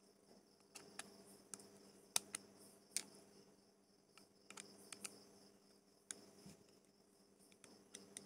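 Near silence broken by scattered light clicks and taps, the loudest about two and three seconds in, as the small parts of a fishing reel are handled during reassembly. A faint steady hum runs underneath.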